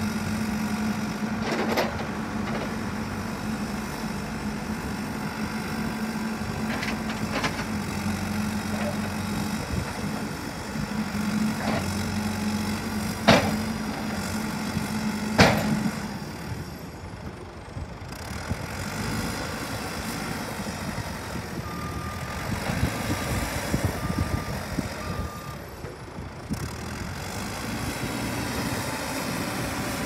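Cat 432E backhoe loader's diesel engine running as the machine drives and manoeuvres, steady in the first half and then dropping and changing note about halfway. Several sharp knocks come in the first half, the loudest around the middle. A reversing alarm beeps four times about three quarters of the way through.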